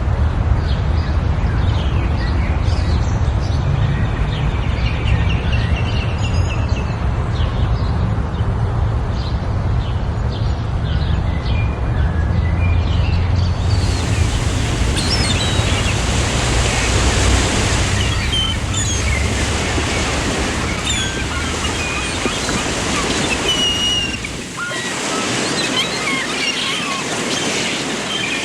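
Songbirds chirping in short, high notes over a steady rushing noise like surf or wind. The background changes about halfway through, when the chirps become more frequent, and again near the end, when the deep rumble drops away.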